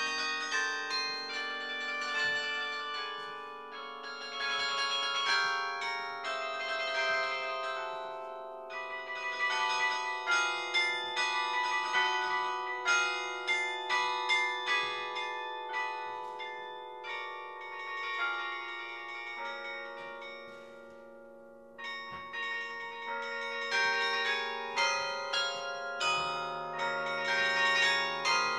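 Carillon bells played from the baton keyboard: a tune of struck bells ringing on into one another, with deep low bells holding underneath. The playing thins out to a fading ring-out a little before the twentieth second and picks up again about 22 seconds in.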